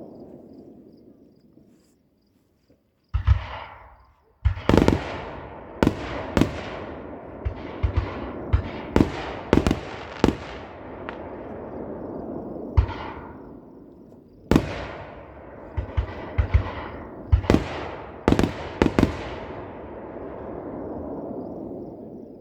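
Aerial fireworks display: a rapid string of sharp bangs from bursting shells, a dozen or more, each followed by a rumbling echo, starting about three seconds in after a brief lull and dying away near the end.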